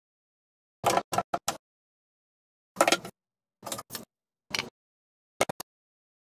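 Short knocks and clacks in about six small groups, from plywood drawer panels and metal drawer slides being handled and set down against a plywood cabinet.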